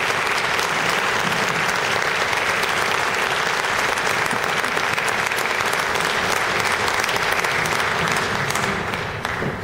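An audience applauding steadily, a dense clapping that begins to die away near the end.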